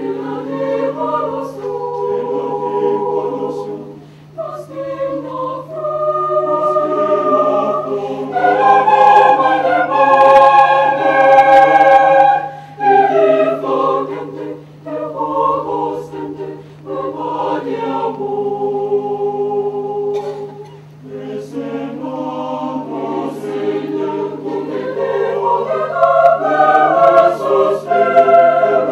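Mixed choir of women and men singing a cappella in sustained, held chords, the phrases swelling loudest about a third of the way in and again near the end.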